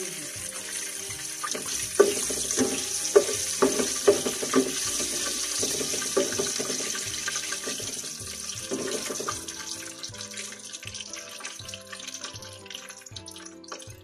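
Hot oil and ghee sizzling in a pot with cardamom powder, stirred with a spatula that knocks and scrapes against the pot several times in the first half. The sizzle dies down over the last few seconds.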